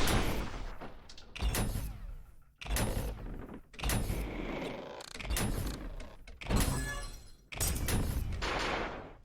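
Loud breathing close to the microphone: a regular run of noisy breaths, one starting a little more than every second, each fading before the next.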